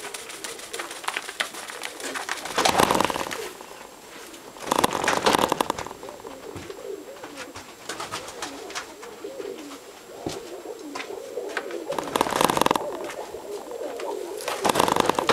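Nikolaev pigeons cooing in a small loft, with four louder noisy flurries about three, five, twelve and fifteen seconds in.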